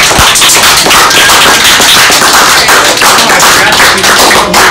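A small group of people applauding, dense, irregular clapping.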